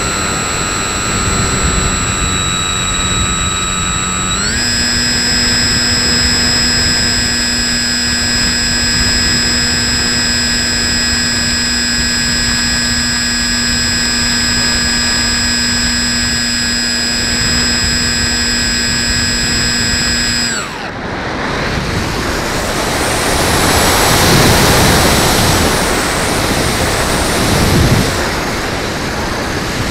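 Electric motor of a radio-controlled foam plane whining steadily, heard from its onboard camera; the pitch steps up about four seconds in as the throttle is raised. Around twenty seconds in the motor cuts off sharply, and wind rushes over the plane as it glides on.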